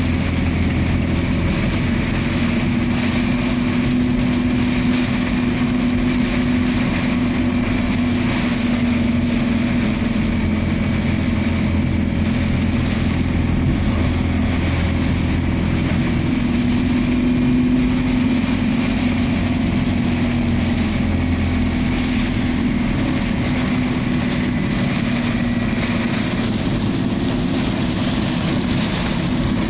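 Inside a vehicle driving through heavy rain: a steady engine drone over an even hiss of rain on the windscreen and tyres on the wet road.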